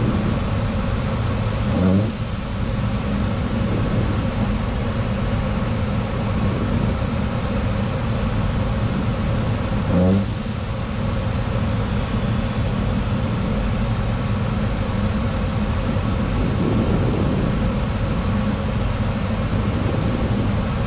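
Steady flight-deck noise of a Boeing 737-800 on approach: rushing airflow over the nose with a low engine and equipment hum. There are brief louder blips about two seconds in and again near the middle.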